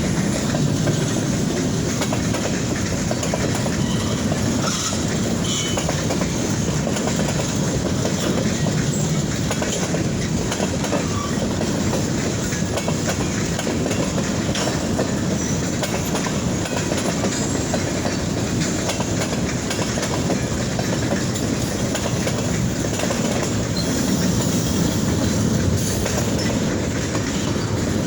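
Kiamichi Railroad freight train's cars rolling past close by: a steady rumble of steel wheels on rail with the clickety-clack of the wheels over the rail joints.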